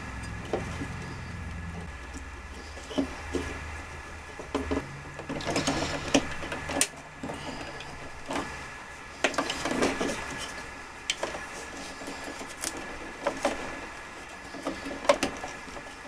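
Hands working a wall switch and its wires into a metal electrical box: scattered clicks and taps of plastic and metal, with rustling as the wires are folded in. A low hum runs under the first few seconds.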